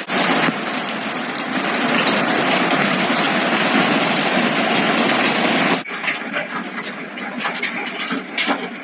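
Hailstorm: a dense, steady roar of hail and rain. After a cut about two-thirds through, it gives way to many separate sharp hailstone impacts clattering.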